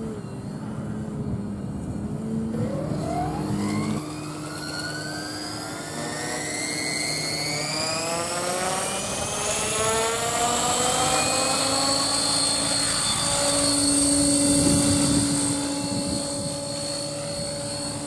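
An RC model helicopter spooling up: its motor and rotor rise steadily in pitch for several seconds, then hold a steady high whine at flying speed. Before that, an RC aerobatic plane's propeller runs at a steady pitch for about four seconds and cuts off abruptly.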